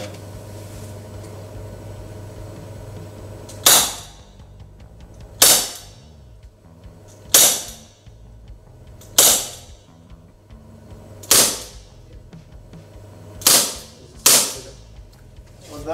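SRC Titan gas-powered revolver gel blaster firing seven sharp shots through a chronograph, about two seconds apart, the last two in quick succession. Each report trails off briefly.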